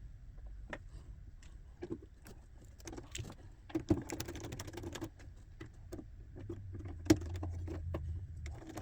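Irregular small clicks and light rattling of cables and connectors being handled and pulled off, with one sharper click about seven seconds in, over a low hum.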